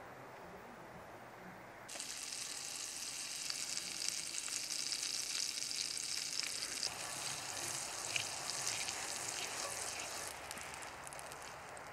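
Butter sizzling and frying in a hot cast-iron skillet over a wood fire, coming in suddenly about two seconds in as a bright, steady hiss. The sizzle eases near the end.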